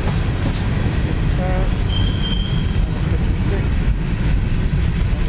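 Freight cars, mostly covered hoppers, rolling past on the rails with a steady low rumble of steel wheels, and a brief high squeal about two seconds in.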